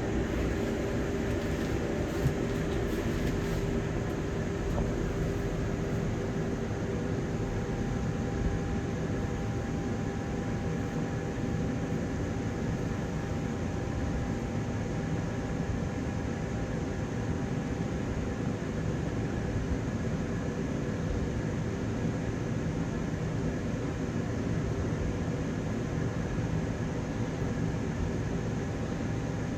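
Steady running noise of a London double-decker bus heard from on board: a constant engine and cooling-fan drone with a steady whine over it, and one small click about two seconds in.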